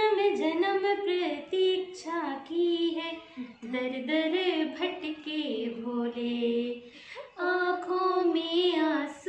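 A woman and a girl singing a song together, unaccompanied, in long held phrases with a short break about seven seconds in.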